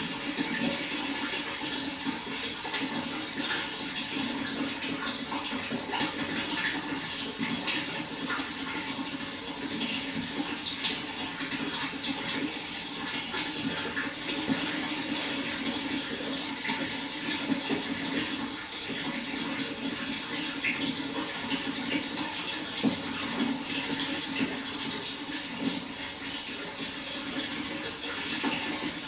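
Water flowing steadily, a continuous rush with many small splashes and gurgles.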